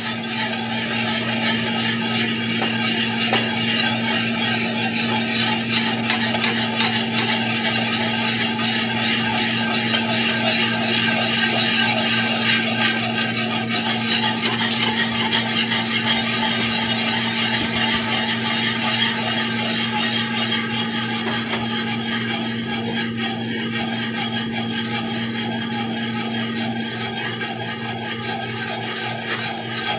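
Wire whisk stirring thick gravy in a cast-iron skillet, a continuous quick scraping of the wires against the iron bottom as the gravy is brought up to the boil. A steady low hum runs underneath.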